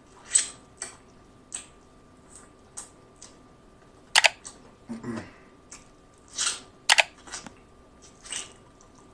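Close-miked mouth sounds of eating fried chicken off the bone: separate wet lip smacks and sucking clicks, the loudest a quick double smack about four seconds in and another about seven seconds in.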